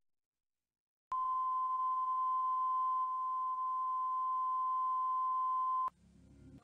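Videotape line-up tone: a steady 1 kHz sine reference tone accompanying colour bars at the head of the tape. It starts about a second in, holds at one pitch and level, and cuts off suddenly near the end, leaving a faint low hum.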